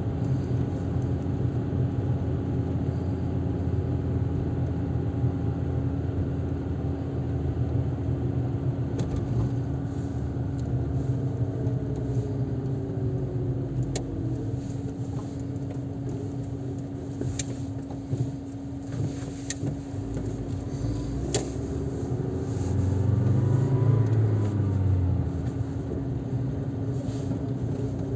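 Car engine and tyre noise heard from inside the cabin while driving: a steady low rumble with a constant hum. The engine note falls as the car slows, then rises and grows louder as it speeds up again about four-fifths of the way through, and a few sharp clicks come in the middle.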